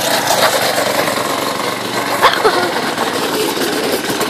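Go-kart's small gas engine running steadily as the kart is driven, with a few short clicks over it.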